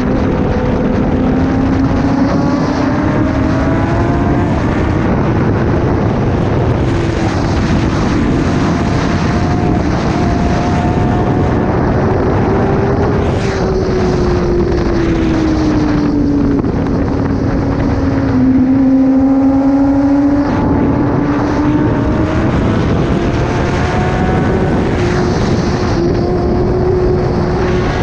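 Kawasaki ZX-10R superbike's inline-four engine through an SC-Project exhaust, ridden on the road. The engine note rises and falls with the throttle, dropping to a low steady hum around the middle and climbing again near the end.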